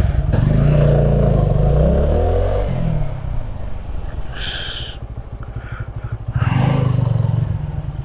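Motorcycle engine pulling away and revving, its note falling after about two seconds, then rising briefly again near the end as the bike slows. A short high-pitched sound comes about halfway through.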